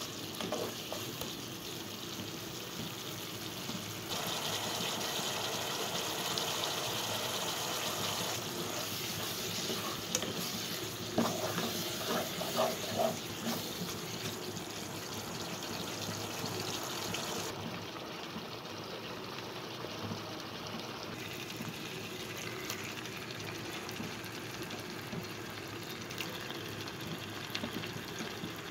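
Spiced onion masala sizzling and frying in a kadai as it is stirred with a spatula, with a few knocks of the spatula against the pan about eleven to thirteen seconds in.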